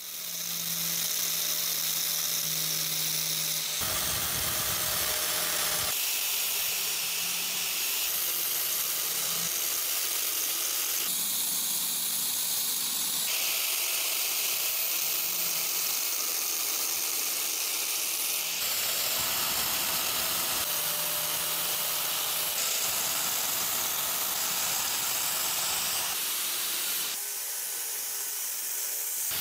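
Handheld angle grinder running with an abrasive disc pressed against a steel hammer head, a steady hiss of grinding with a faint motor whine. The sound shifts abruptly every few seconds where takes are cut together.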